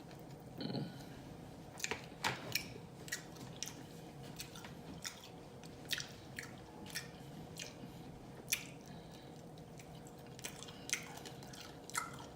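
Close-up open-mouthed chewing of pizza with loud, wet smacking: many sharp, irregular mouth clicks and lip smacks.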